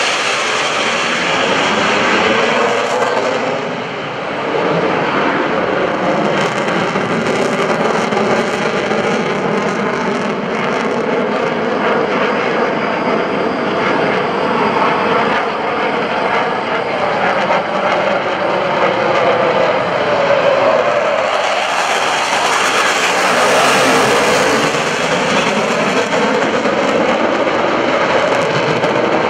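Twin General Electric F404 turbofans of a Blue Angels F/A-18 Hornet making loud, continuous jet noise as it flies a solo manoeuvre. The noise dips briefly about four seconds in. It swells and grows brighter for several seconds past the middle as the jet comes closer.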